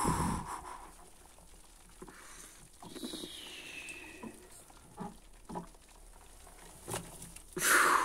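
Hands handling a wet towel in the open steel drum of an Indesit front-loading washing machine. There is a low thump at the start, then soft knocks and rustles, a short falling squeak about three seconds in, and a louder rustle just before the end.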